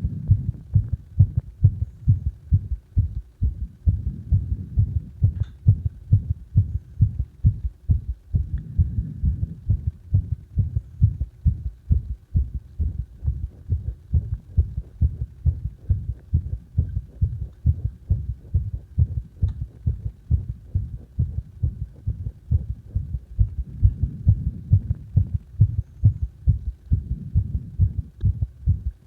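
A human heartbeat recorded during CPR: low, even thumps about twice a second, running on without a break.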